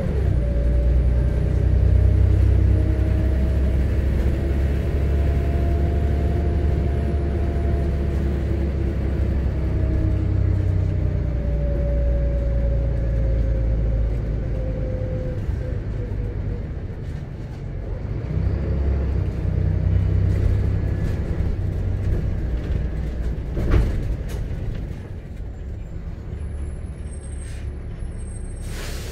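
Volvo B7RLE bus's rear-mounted diesel engine and driveline heard from inside the passenger cabin as the bus drives: a heavy steady rumble with a whine that rises and then slowly falls during the first half. A short click comes about three-quarters of the way through, and the running grows quieter near the end.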